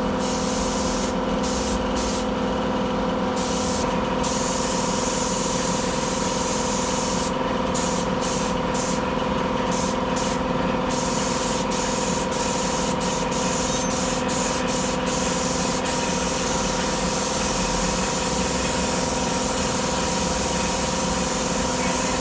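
Gravity-feed paint spray gun hissing as compressed air atomises freshly mixed, catalysed paint. The hiss breaks off again and again as the trigger is let go, most often in the first half, over a steady hum.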